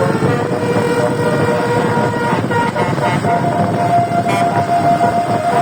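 A bus's 24-trumpet Cortas telolet air horn playing a tune of held notes. A long lower note sounds for about the first two and a half seconds, then a higher note from about three seconds in, over a steady rushing noise.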